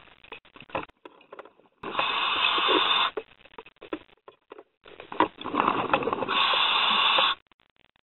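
Scuba diver's regulator heard underwater: two loud rushes of exhaled bubbles, the second longer, with faint clicks and crackling between them.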